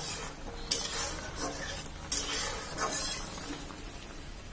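A cooking utensil stirring and scraping through a pot of simmering curry, with a few short knocks and scrapes against the pot over a steady hiss from the cooking.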